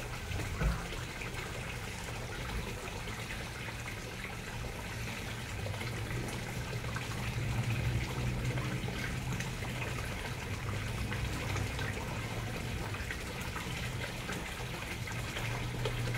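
Water pouring steadily over a small concrete spillway into a fish pond, an even splashing rush with a steady low hum underneath. A single brief thump comes just under a second in.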